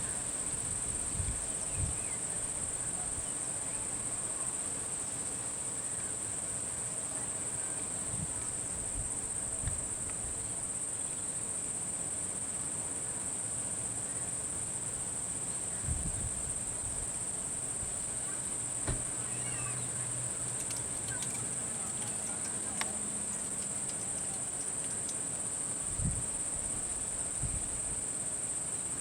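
Steady, high-pitched drone of insects calling without a break, with a few soft low thumps scattered through it.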